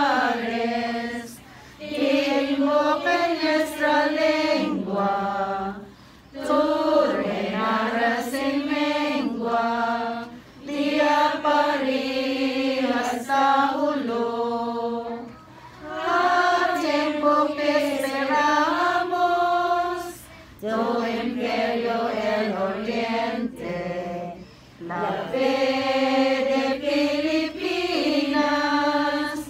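A small group of voices singing a devotional hymn together in sung phrases of about four to five seconds, with short breaks between them.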